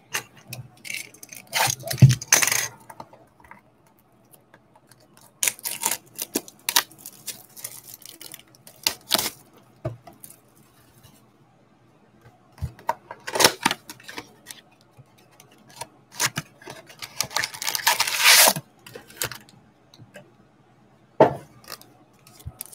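Hands opening a cardboard 2020 Donruss Football blaster box: scattered short rustles, taps and scrapes with quiet gaps. About three quarters of the way in comes a longer rustle as the stack of wrapped card packs is pulled out.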